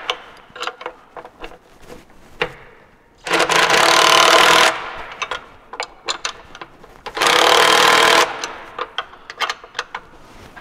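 Handheld cordless power tool run in two bursts of a second or so each, zipping on the turbo charge pipe's fasteners, with small clicks and knocks of handling between the bursts.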